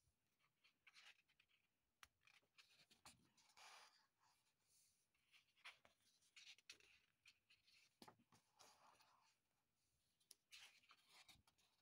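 Faint paper rustling as sketchbook pages are turned and smoothed by hand, several times, with small clicks of the paper.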